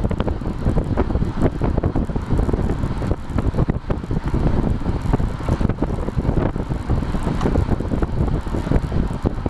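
Wind buffeting the microphone of a bike-mounted action camera on a road bike at about 28 mph: a steady, loud, fluttering rumble, with road and tyre noise under it.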